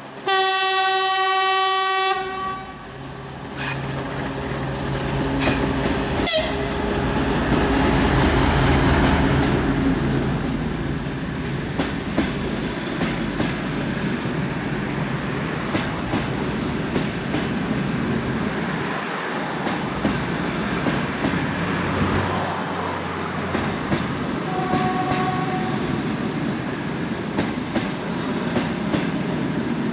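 TEP70BS diesel passenger locomotive sounds one loud horn blast of about two seconds, then its diesel engine passes close by and the passenger coaches roll past with a steady clickety-clack of wheels over rail joints. A short, fainter horn note sounds about 25 seconds in.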